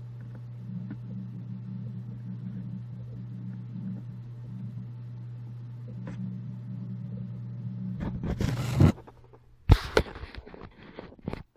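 A steady low hum that stops about nine seconds in, right after a loud burst of rustling noise. Several sharp knocks and rustles follow near the end.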